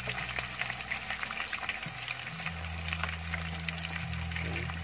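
Flour-coated chicken pieces deep-frying in hot oil: a steady sizzle of bubbling oil, dotted with many small crackling pops.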